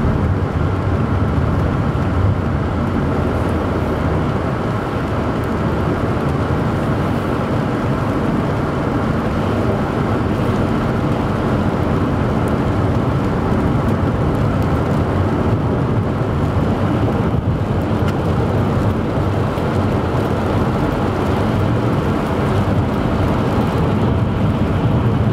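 Steady road noise inside a moving car's cabin: engine hum and tyres rolling on a wet road.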